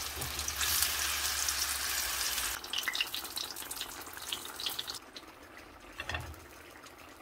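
Salmon pieces shallow-frying in canola oil in a cast iron skillet: a dense sizzling hiss that thins to scattered crackles about two and a half seconds in and dies away around five seconds in, as the fish is lifted out of the oil.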